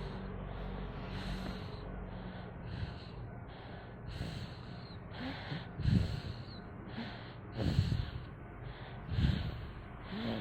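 A sleeping young child snoring. It begins with soft breathing in and out, and from about halfway through come louder snores roughly every second and a half.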